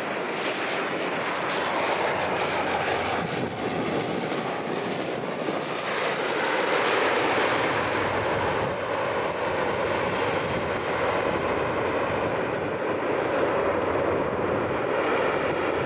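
Dash 8 turboprop airliner touching down and rolling out along the runway: a steady rush from its two turboprop engines and propellers, with a faint high whine falling in pitch over the first few seconds.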